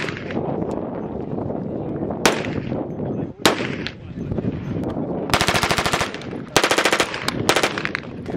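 Three single heavy rifle shots a second or more apart from a CMMG Anvil in .458 SOCOM, then several rapid full-auto bursts from a CMMG MK9 short-barrelled rifle from about five seconds in, the first burst the longest.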